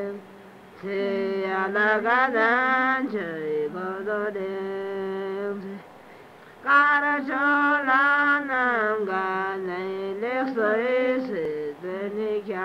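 Buddhist nuns (jomos) singing a slow devotional chant: long held notes that bend slowly in pitch, in two phrases with a short pause for breath just after the start and another about halfway through.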